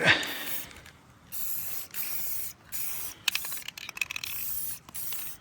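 Aerosol spray-paint can sprayed in a series of short hisses, about seven, starting about a second in, marking a layout on asphalt.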